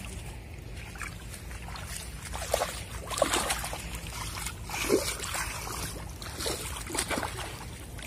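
Wet river mud being scooped and slapped by hand at the water's edge: scattered squelches and small splashes, a second or so apart, the loudest ones about three and five seconds in.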